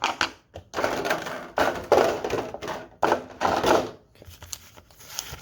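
Foil trading-card booster packs rustling and crinkling as they are handled, in a run of four or five short rustles between about one and four seconds in.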